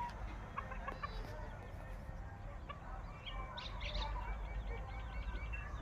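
Farm animals calling: scattered short squeaks and clucks, with a run of quick repeated chirps in the second half, over a steady low rumble.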